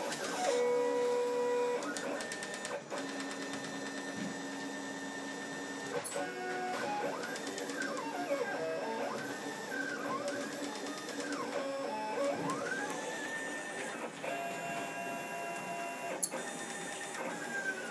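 Stepper motors of a homemade Solsylva-style CNC router driving the X and Y axes on a dry run, with the router spindle switched off. They give a whining tone that holds steady on straight moves and glides up and down in repeated arcs through the middle as the machine traces the curves of a letter.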